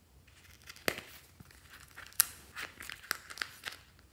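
A sequinned wallet being opened: two sharp clicks, about a second and two seconds in, as its metal clasp comes undone, and between and after them the crinkling of a plastic zip bag being drawn out.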